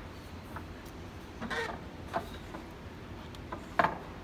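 A few light knocks and clicks of steel pipe clamps and wooden boards being handled and shifted into line, with the sharpest knock near the end.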